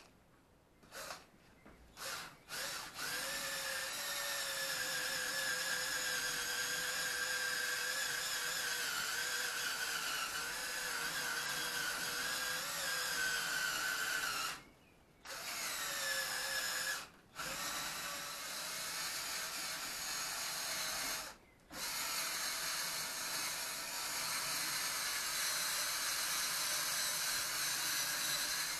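Hand-held power drill blipped a few times, then run in long stretches, its pitch sagging slowly under load, with three short stops along the way.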